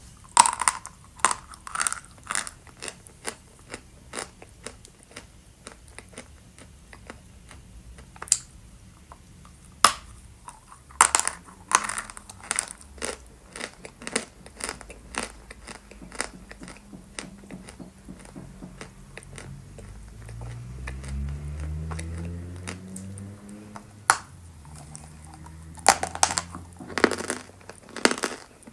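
Dry 'Chester' eating chalk being bitten and chewed close to the microphone: sharp, crisp crunches in clusters with short pauses between. About two-thirds of the way through, a low hum rises in pitch.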